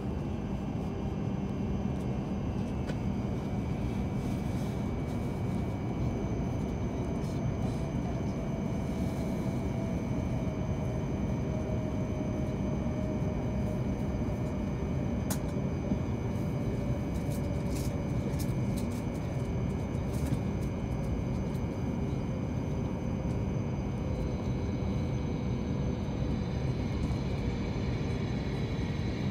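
Cabin noise of an E7/W7-series Hokuriku Shinkansen train braking into a station: steady rumble of the running gear, with a faint whine that falls slowly in pitch as the train slows toward a stop.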